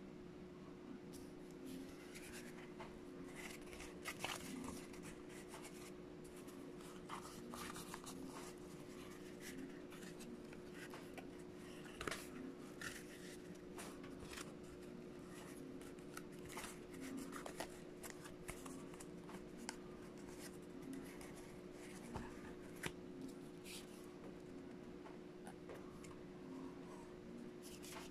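Corrugated cardboard pieces being handled and flexed by hand: quiet, scattered scrapes, rustles and light taps, with a few sharper clicks, over a steady low hum.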